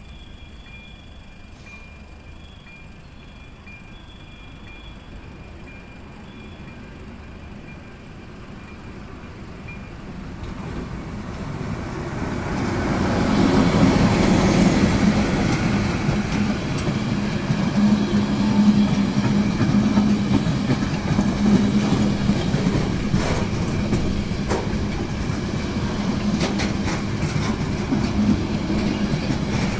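A pair of ČD Cargo class 742 diesel-electric locomotives approaching and passing close by at the head of a container freight train, the sound building over about ten seconds to its loudest partway through. The container wagons then roll past, their wheels clicking over the rail joints.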